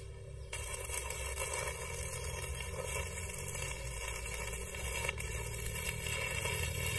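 Stick-welding arc struck about half a second in, then crackling and sizzling steadily as the electrode is run around a joint in round steel tube, over a steady low hum.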